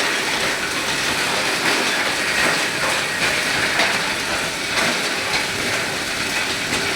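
Plastic scrap grinder running loud and steady: a noisy rush with irregular clatter as plastic is cut and ground.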